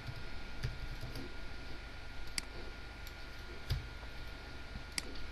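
A few scattered computer keyboard keystrokes, single sharp clicks about a second apart, over a steady background hum.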